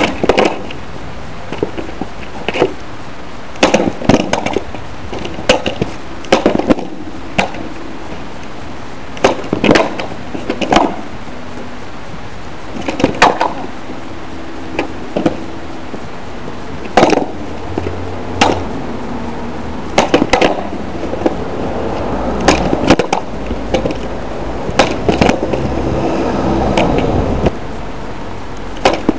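Skateboard on asphalt during repeated kickflip attempts: sharp wooden clacks and slaps as the tail pops, the deck flips and the board and wheels hit the road, often in quick clusters every second or two, with shoes stomping down on the tarmac.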